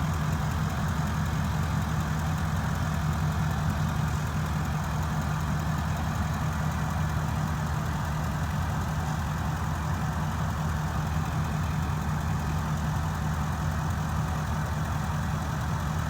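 Ford E-350 van's engine idling steadily.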